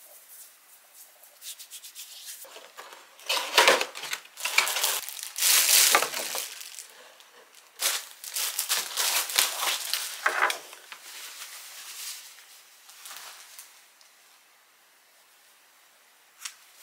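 Clear plastic packaging crinkling and rustling as a folded pajama shirt is pulled out of its bag, in a run of loud, irregular bursts that dies down after about ten seconds.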